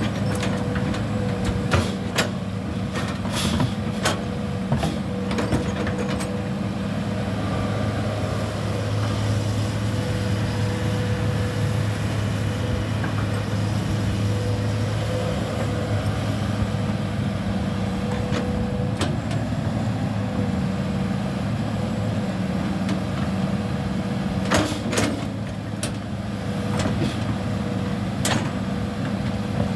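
Hitachi crawler excavator's diesel engine running steadily while the machine swings and digs, with a steady higher tone over the engine hum. Sharp knocks and clanks come now and then: several in the first few seconds and a pair about 25 seconds in.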